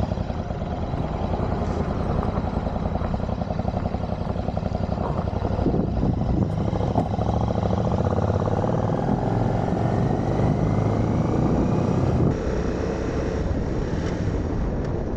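Royal Enfield Continental GT 650's parallel-twin engine running under way, with wind and road noise. The engine note rises as it pulls harder in the middle, then the sound drops suddenly in level about three seconds before the end.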